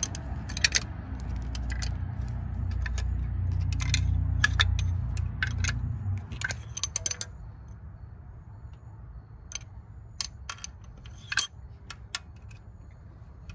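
Light metallic clinks and clicks, a dozen or so at uneven intervals, over a low rumble that fades out about six seconds in.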